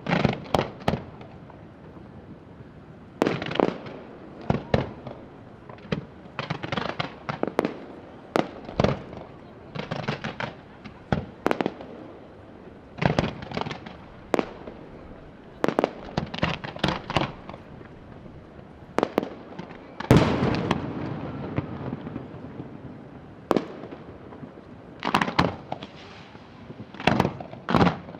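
Fireworks display: aerial shells bursting in quick clusters of sharp bangs, with a denser, louder volley about two-thirds of the way through that trails off into crackle.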